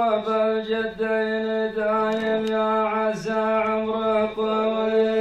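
A man chanting in the drawn-out style of a sung Arabic poem melody, holding one long, nearly steady note with a brief dip in pitch about three seconds in.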